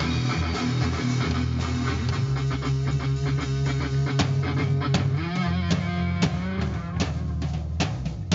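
A rock band playing live: electric guitars, bass and drum kit together in sustained chords. Near the end the playing breaks up into separate accented hits with short gaps between them.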